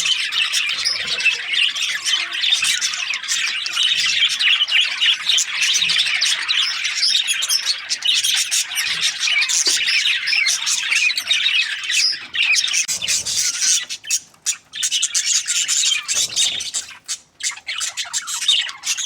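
Budgerigars chattering and squawking nonstop in rapid, high-pitched bursts, with a couple of brief lulls near the end.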